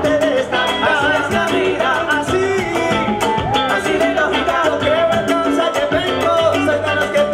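Salsa band playing live, with a steady percussion beat under electric guitar and bass, and a man singing lead at times.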